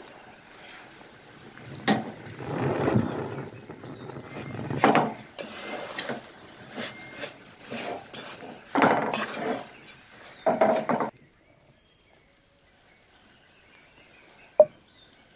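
Wooden spoon stirring and scraping dry flour in an aluminium pot, in irregular strokes with a few sharp knocks of the spoon on the pot. It stops about eleven seconds in, and after a stretch of near quiet there is one sharp click near the end.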